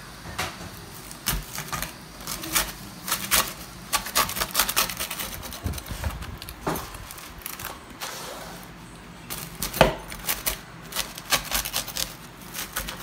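Crisp, charred pizza crust crackling and crunching as it is pressed down and cut with a wheel pizza cutter on a wooden board, in irregular sharp clicks.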